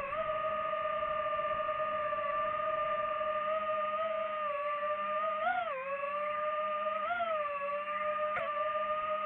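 DJI FPV quadcopter's motors and propellers whining at a steady pitch. The pitch briefly swings up and down about five and a half seconds in and again around seven seconds, as the throttle changes.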